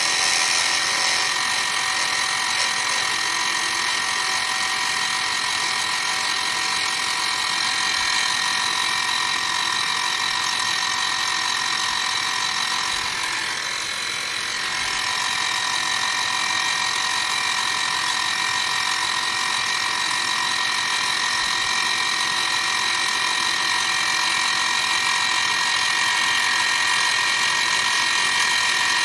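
End mill on a milling machine cutting flats into a resin pen blank: a steady whine of several high tones over a cutting hiss, dipping briefly about halfway through.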